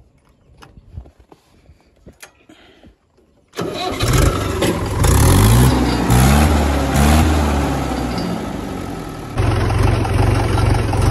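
A few faint clicks at the dashboard controls, then about three and a half seconds in a Mahindra tractor's diesel engine starts suddenly, its revs rising and falling for a few seconds before it runs on steadily.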